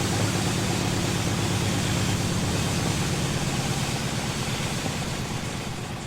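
A steady engine drone under a broad hiss, slowly fading over the last couple of seconds.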